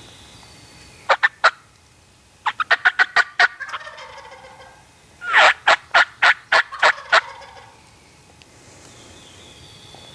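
Wild turkey calling in three loud bursts of sharp, quick notes. There are three notes about a second in, a fast run of about eight notes a second later, and a louder run of about seven notes near the middle.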